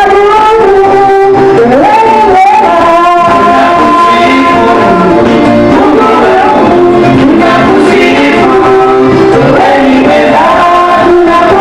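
Worship music: singing over instrumental accompaniment, loud and continuous.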